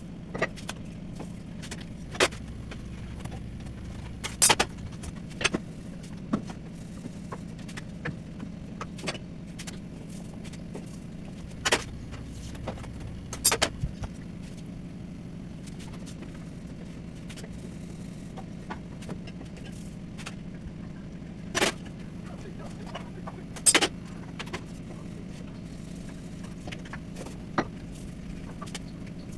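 Chapati-making sounds: scattered sharp knocks, slaps and metal clinks from a wooden rolling pin on a steel rolling plate, hands patting the flatbread and a pan on a gas stove, over a steady low hum.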